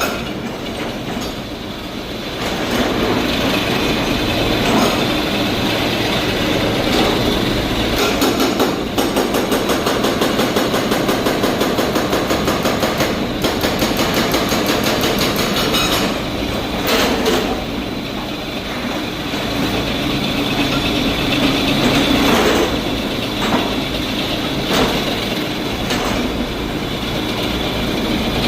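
Rock-drilling rig boring into rock: continuous machine noise with a rapid, regular rattle.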